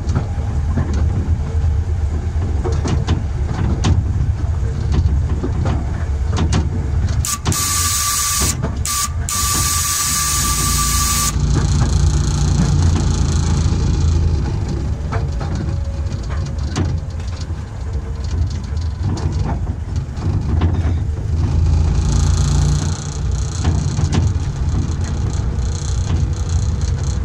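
Miniature-railway locomotive running along 12-inch gauge track: a steady low rumble with clicking from the wheels and rail joints. About seven seconds in, a loud hissing signal blast with one steady tone lasts about four seconds, broken by two short gaps.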